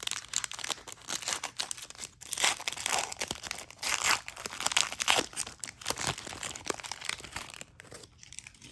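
A trading-card pack's wrapper being torn open and crinkled: a dense, irregular crackling that thins out near the end.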